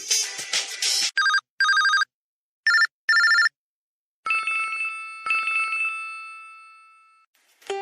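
LG VX5600 Accolade phone ringtones: the end of a music tone, then an electronic telephone ring, two pairs of short two-pitch rings, followed by two longer ringing notes that fade away.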